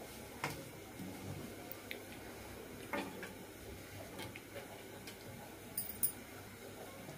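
A steel ladle clinking and knocking lightly against an iron kadhai a few times as a thin curry is stirred, with the sharpest pair of clinks near the end, over a faint steady background hiss.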